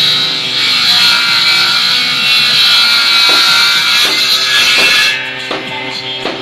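Table saw ripping a wooden plank lengthwise, a loud steady cutting noise that drops away about five seconds in as the cut ends. Background guitar music plays throughout.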